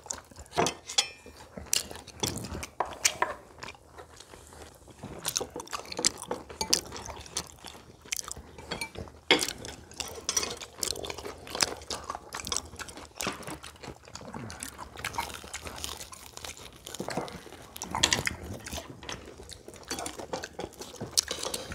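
Several people chewing and crunching on fried market foods such as old-style fried chicken and fried squid, in a quick irregular run of crackles, with now and then a clink of chopsticks and forks on plates.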